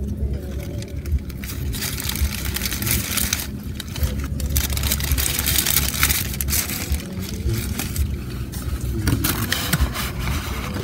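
Paper sandwich wrapper crinkling and rustling as it is handled and folded, in bursts of several seconds, over a low steady rumble inside a car.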